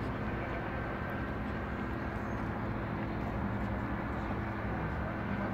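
Single-engine light aircraft towing a banner overhead, its piston engine and propeller giving a steady hum.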